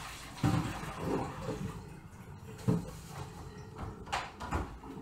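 Salty brine water being poured out of a pot into a kitchen sink, a steady splashing hiss for the first second and a half or so. A few dull knocks and bumps follow as the pot and the corned beef brisket are handled.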